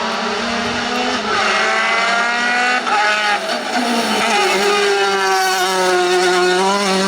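Ford Fiesta rally car's engine running hard at high revs on a stage, its pitch dipping briefly about three and four seconds in before holding steady again.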